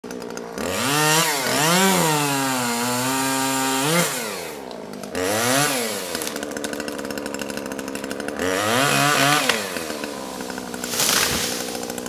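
A two-stroke chainsaw revved up and down repeatedly, dropping back to a fast, chattering idle between the revs.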